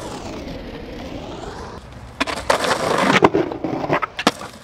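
Skateboard wheels rolling over concrete, then a run of sharp board clacks and rolling noise as a trick is done on a concrete wall, ending in a sharp clack of the board landing.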